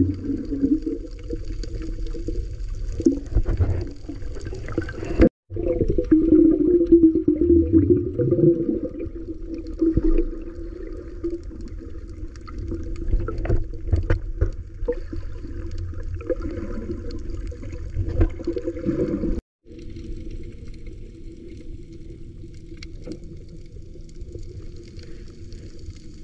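Muffled underwater sound picked up by a submerged camera: a dull, mostly low rush and sloshing of water with some bubbling, swelling and falling. It drops out completely twice, briefly, where the footage is cut.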